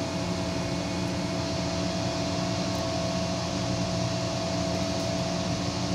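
Steady machine hum with a few constant held tones, in the manner of a fan or air-conditioning unit running.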